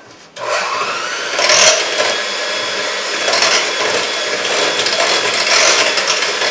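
Electric hand mixer switched on about a third of a second in, running steadily as its beaters whip thin popover batter in a glass bowl.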